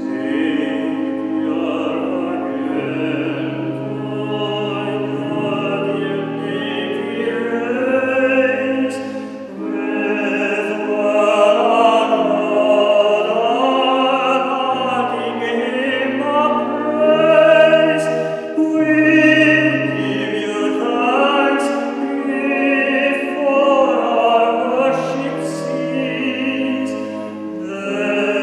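A voice singing over organ accompaniment, with long held notes and a slowly stepping bass line beneath.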